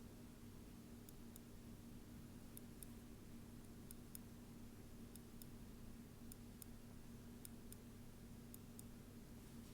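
Tweezers working rice grains against a microphone: faint, crisp clicks in pairs, about one pair a second, over a steady low hum.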